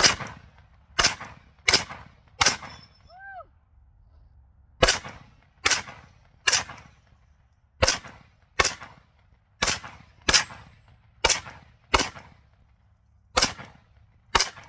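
AK-pattern rifle fired semi-automatically, about fifteen single shots at a steady pace of roughly one a second, with one pause of a couple of seconds after the fourth shot.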